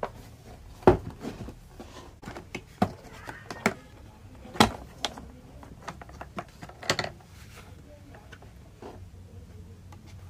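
Scattered knocks and clicks of objects being handled, loudest about a second in and again halfway through, over a faint low hum.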